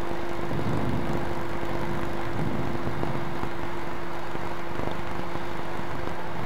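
Ferry's machinery running: a steady drone with one constant hum through it and some extra low rumble in the first few seconds.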